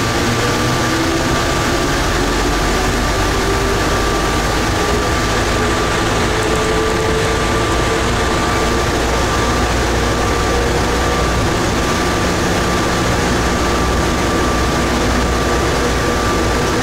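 Plane Train automated people mover, a rubber-tired train on a concrete guideway, running through its tunnel, heard from inside the car: a steady rolling rumble and hiss, with a motor whine that rises in pitch over the first several seconds as the train gathers speed, and a steady high tone throughout.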